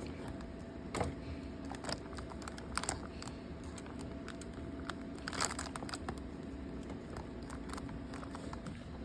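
Scattered light plastic clicks and rustling as a printer's replacement control panel is handled and pushed into place in its housing, over a faint steady hum.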